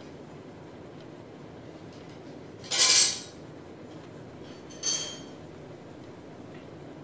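Metal shower floor-drain grate clinking against its frame and the tile twice: a longer, rougher clatter about three seconds in, then a shorter clink with a ringing metallic tone about two seconds later.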